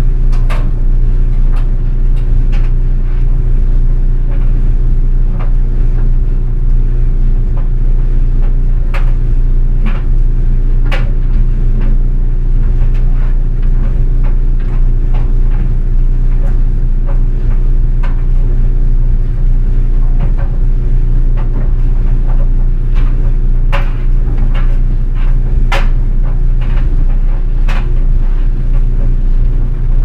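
GE Spacemaker DSKS333E clothes dryer tumbling a load: a steady low hum from the motor and drum, partly picked up through a contact mic on the front panel. Irregular metallic clicks and scrapes come through it from a jeans button and zipper hitting the drum.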